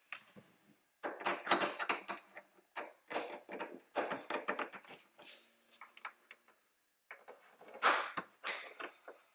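Plastic interior trim panel and hand tools being worked while the panel's screw is removed and its clip pried with a plastic trim tool: irregular clicks, knocks and plastic rattles, with two louder sharp clicks near the end.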